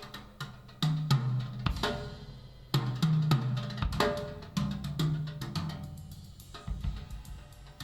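Drum-led music with a bass line played back through a handmade two-way loudspeaker for a sound test: sharp drum hits over bass notes that change every second or so.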